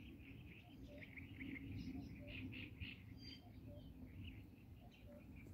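Distant small birds chirping faintly in quick short notes, with a lower short call repeating in the background over a low outdoor rumble.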